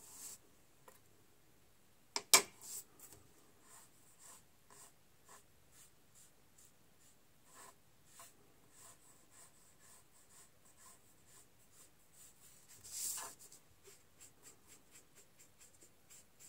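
Sponge rubbing pan pastel onto paper in many short, soft scratchy strokes. A single sharp tap comes about two seconds in, and a longer, louder rub near the end.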